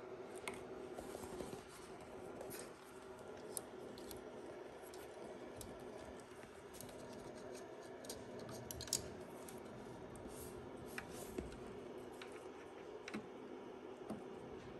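Faint, scattered clicks and scratches of hands handling a test-probe lead and wiring inside an opened receiver chassis, over a faint steady hum.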